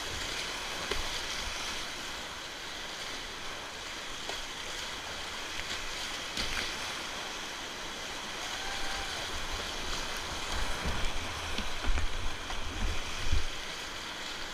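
Rushing whitewater of a river at high flood flow, heard from a kayak running the rapid: a steady roar of churning water. From about ten seconds in, irregular low thumps and splashes break through it.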